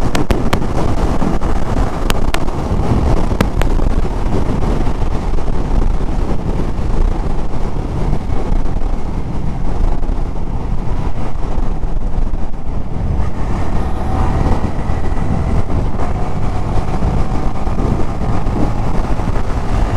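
Wind rushing over the microphone, with the engine and tyre noise of a Yamaha R15 V3 single-cylinder motorcycle underneath, cruising steadily at highway speed in sixth gear.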